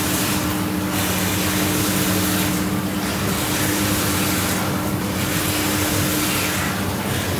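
Jacuzzi whirlpool bathtub running in bubble-massage mode: a steady motor hum under churning, bubbling water, with water pouring in from the tub spout. The hiss of the bubbles dips and swells about every two seconds.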